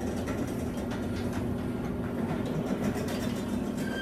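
Electric garage door opener running steadily, its motor humming as the sectional door rolls up its tracks, with small rattles and clicks from the rollers.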